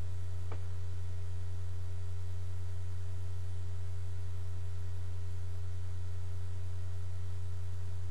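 Steady low electrical hum from a poor-quality microphone setup, with fainter steady higher tones above it. A faint click comes about half a second in.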